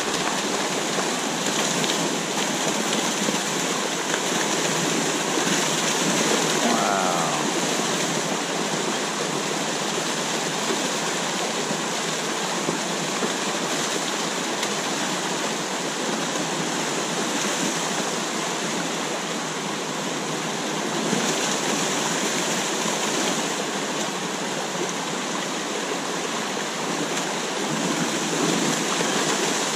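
Steady rush of river water pouring over a low weir and tumbling around boulders: a continuous whitewater sound with small swells in loudness.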